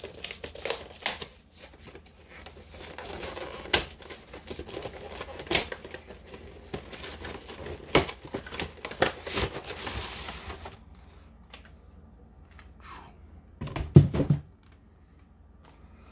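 Plastic wrapping and cardboard packaging of a Pokémon card collection box being handled and opened: crinkling, tearing and a quick run of sharp clicks for about ten seconds. It then goes quieter, with a dull thump near the end.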